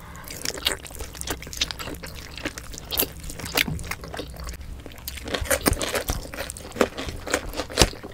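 Two people biting into and chewing braised pork belly adobo close to the microphone: an irregular run of sharp mouth clicks and smacks, several a second.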